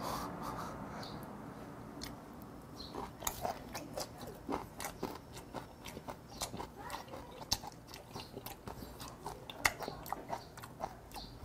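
Close-up chewing of raw, skin-on mudskipper sashimi: irregular small wet clicks and crunches of the mouth working the chewy skinned flesh, starting about two seconds in.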